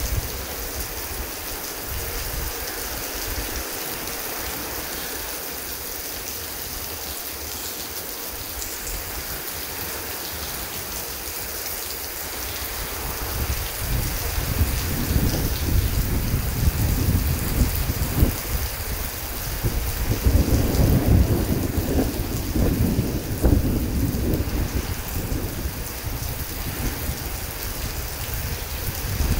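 Heavy rain falling steadily as an even hiss. Low thunder rumbles in about halfway through and rolls on, loudest in the last third.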